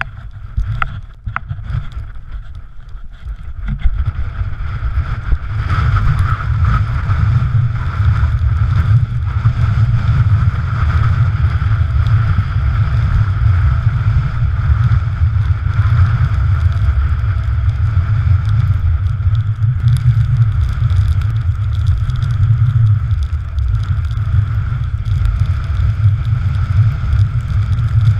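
Strong wind buffeting a GoPro Hero3's microphone: a heavy, steady low rumble that builds over the first few seconds, with a faint thin whistle above it. There are a few light knocks near the start.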